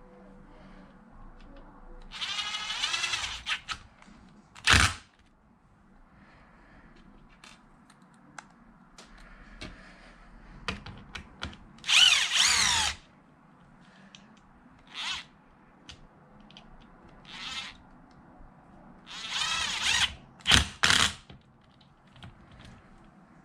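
Handheld power drill countersinking screw holes in short bursts, three main runs with the motor whine rising and falling as it speeds up and slows. There are sharp knocks between the runs.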